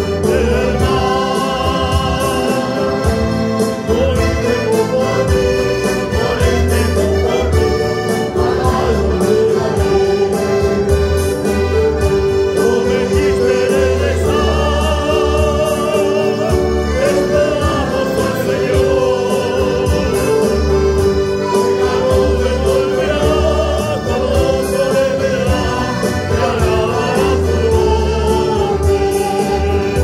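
Church choir singing evangelical choruses in a medley, with instrumental accompaniment: a held keyboard-like note and a steady, pulsing bass.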